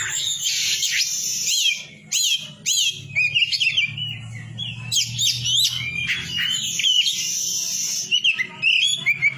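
Oriental magpie-robin (white-bellied 'kacer poci' form) in full song: a fast, unbroken run of varied high whistled notes and quick up-and-down sweeps, mixed with harsh hissing rasps near the start and again about eight seconds in.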